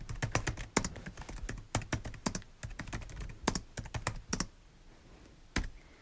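Typing on a computer keyboard: a quick run of keystrokes for about four and a half seconds, then a pause and one last keystroke near the end.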